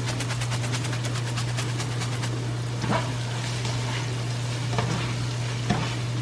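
Ground beef and vegetables sizzling in a frying pan while a spatula stirs and scrapes through them, knocking against the pan a few times in the second half. A steady low hum runs underneath.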